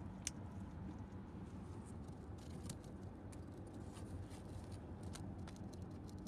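Steady low rumble of a moving car heard from inside the cabin, with a few faint clicks scattered through it.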